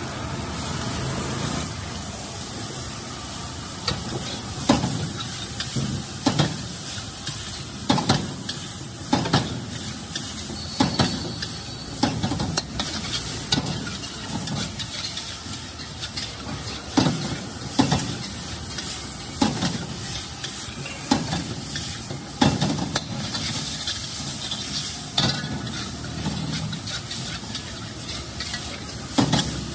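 Chow mein noodles sizzling in a wok over a gas burner while a metal ladle stirs and tosses them, scraping and clanking against the wok at irregular intervals; the clanks begin a few seconds in.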